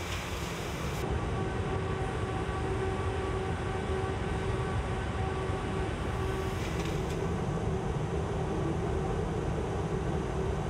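Steady low rumble of factory machinery with a faint steady hum. The high hiss drops away about a second in.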